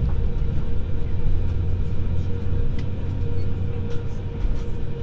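Cabin noise of an Airbus A321 with IAE V2500 engines taxiing at idle: a steady low rumble with a steady hum over it and a few faint ticks.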